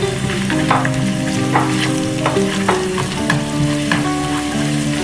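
Garlic paste and whole spices sizzling in hot oil in a nonstick wok. A plastic spatula stirs and scrapes across the pan several times.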